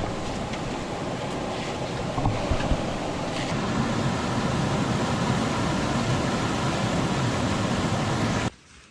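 Steady rushing water of a waterfall, which cuts off abruptly near the end.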